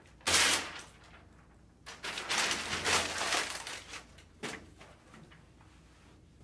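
A paper wall calendar being handled and put up on a cinder-block wall: a short loud rustle near the start, a longer stretch of rustling from about two to four seconds in, and a single sharp tap soon after.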